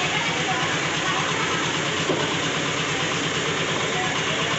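An engine idling steadily, with a fast even low pulse.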